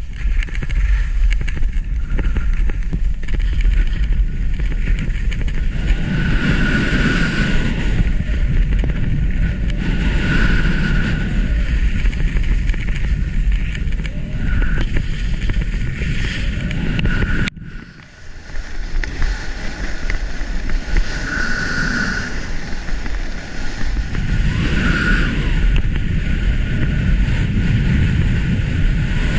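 Wind buffeting the microphone of a skier's body-worn camera, with skis hissing and scraping over snow that swell every few seconds. The sound cuts out briefly about two-thirds of the way through.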